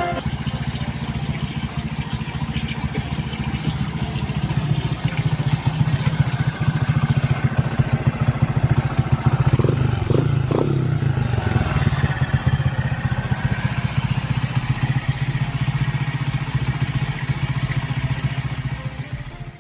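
Honda XRM125 single-cylinder four-stroke engine, bored out to 146 cc with a 57 mm block and fitted with an aftermarket X6 Exos exhaust, running steadily with a quick, even beat.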